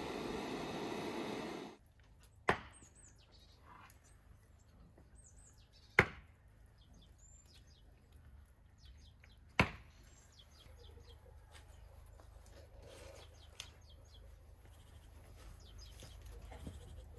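A steady rushing noise that cuts off about two seconds in, then three single sharp knocks or chops about three and a half seconds apart, with birds chirping now and then in the background.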